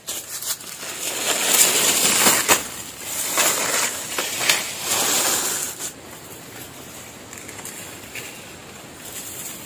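Leaves and brush rustling and crunching, loudest for about five seconds from a second in, then easing to a quieter steady rustle.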